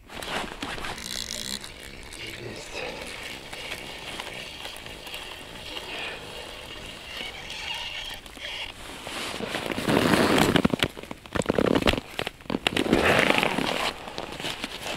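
Crackling, clicking handling noise as gloved hands reel line in on a small ice-fishing rod and reel. Louder rustling with sharp clicks comes in the last few seconds.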